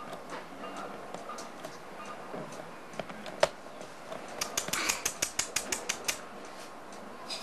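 Scattered light clicks and taps, one sharp, louder click in the middle, then a quick run of about a dozen clicks lasting under two seconds.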